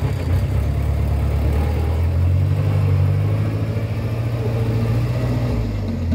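A vehicle engine picks up speed just after the start, runs steadily, and slows near the end.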